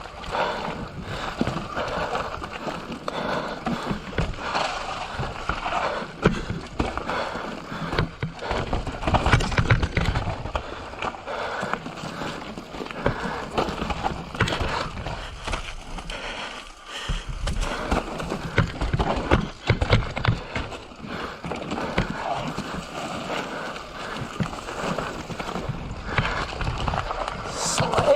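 Mountain bike descending a rough, rocky trail: tyres rolling and skittering over rocks and dirt, with the chain and frame rattling in a continuous clatter that swells and eases with the terrain.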